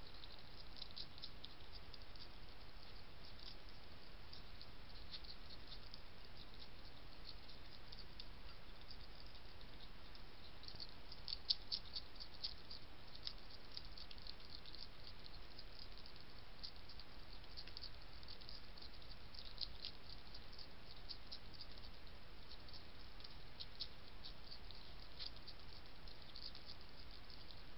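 European hedgehog chewing dry cat biscuits, a fast, irregular run of small crunching clicks over a steady hiss, with a few louder clicks about twelve seconds in.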